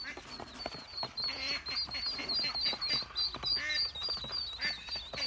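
Mallard ducklings peeping: a steady run of short high-pitched peeps, about four a second, with a few lower calls mixed in.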